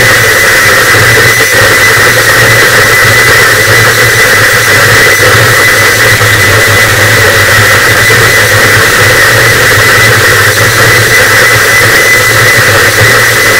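Harsh noise wall: a loud, dense, unchanging wall of distorted static, with a thin steady high whistle and a low hum inside it.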